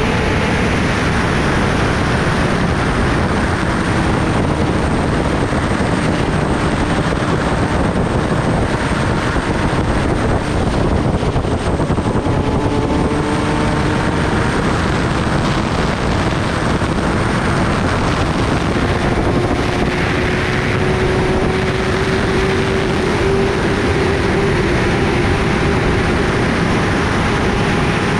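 Kawasaki Ninja ZX-10R ridden at steady highway speed: a loud, constant rush of wind over the microphone, with the inline-four engine's drone faintly underneath, its pitch drifting slowly up in the second half.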